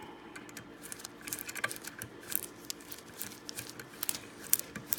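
Irregular small metallic clicks and taps of hand tools and metal parts being handled while bolts are fitted to a pneumatic flooring stapler, with a few sharper clicks scattered through.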